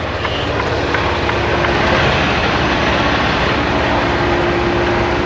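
Heavy truck running steadily: an even mechanical rumble and hiss, with a faint steady hum that comes in about a second and a half in.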